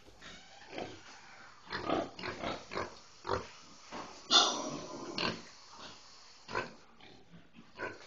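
Pigs in a pen grunting in short, separate calls, with one louder, longer call a little over four seconds in.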